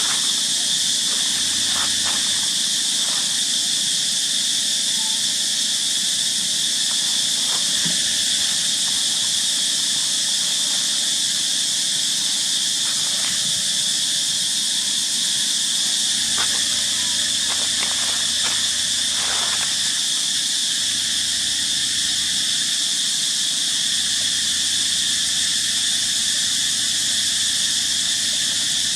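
A steady, unbroken chorus of insects: a high, even buzz at one constant pitch. A few faint, brief sounds come through it, most of them in the middle stretch.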